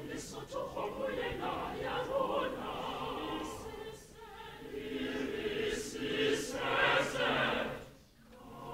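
Mixed choir of men's and women's voices singing together; the sound thins briefly about four seconds in, swells again, and breaks off near the end.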